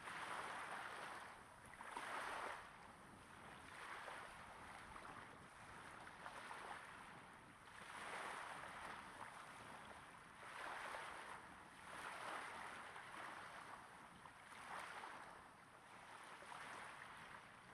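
Small waves breaking gently on a sandy beach, recorded close up: a soft wash of water that swells and ebbs about every two seconds.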